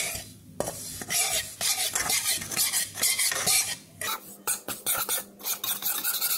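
A spatula scraping and stirring whole-wheat flour as it roasts in ghee in a heavy, thick-bottomed kadhai, in repeated scraping strokes about two or three a second that thin out a little after about four seconds.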